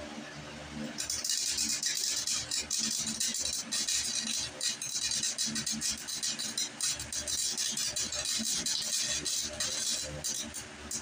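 Electric welder running a bead on the Jacobsen Chief garden tractor's rear steel: a steady crackling sizzle that starts about a second in and stops just before the end, with a brief break shortly before it stops.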